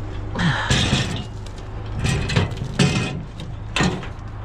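Curbside scrap being handled and moved: about four bouts of clattering and scraping, the loudest a second or so in, over a steady low hum.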